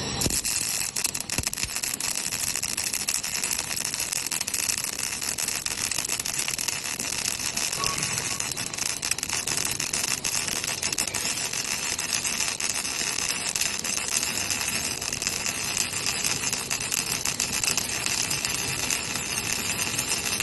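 Electric welding arc crackling and sizzling steadily, with a dense spatter of fine crackles throughout, from a robotic arm's orbital weld on a large pipe.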